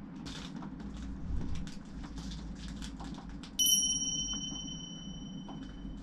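Plastic food packaging rustling and crinkling in the hands. About three and a half seconds in, a single bright bell-like ding rings out and slowly fades.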